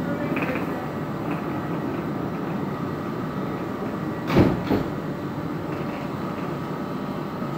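EMR Connect electric train at a station platform, giving a steady hum. Two short thumps come close together about four and a half seconds in.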